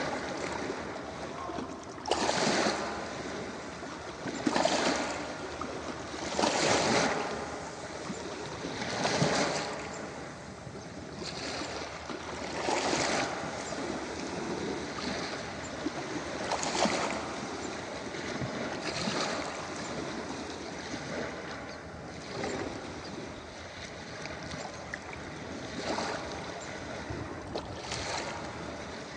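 Ocean waves breaking and washing up on a beach: a continuous hiss of surf that swells with each wave every few seconds.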